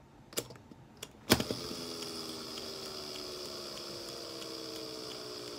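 Abu Garcia Ambassadeur 5500C baitcasting reel set spinning with a sharp click about a second in, then its handle, gears and spool free-spinning with a steady whir whose tones slowly drop in pitch as it winds down. The reel is freshly tuned and run with no brake and minimal oil, so it keeps spinning a long time. A few light clicks of fingers on the reel come before.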